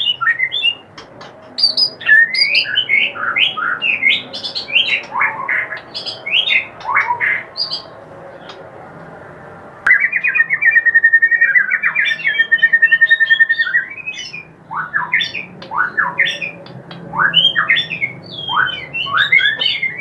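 White-rumped shama (murai batu) singing 'kretekan' song: quick, varied whistled and harsh sweeping notes, a pause of about two seconds near the middle, then a fast, even run of repeated notes held for several seconds before the varied phrases resume.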